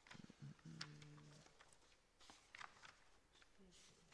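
Near silence in a small room, with faint rustles and clicks of paper sheets being leafed through. A brief, low, steady-pitched voice sound is heard in the first second and a half.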